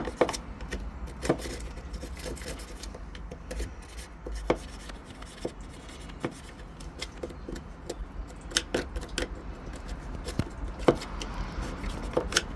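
Screwdriver poking and scraping at a dirt-clogged drain hole in a Mercedes Sprinter van's steel body: irregular small metallic clicks and scrapes, with a few sharper knocks near the start and late on.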